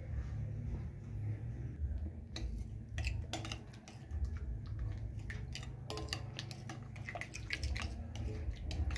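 Fingers stirring a thick ketchup and oyster sauce marinade in a glass bowl: irregular small clicks against the glass and soft wet squishes, starting about two seconds in, over a low steady rumble.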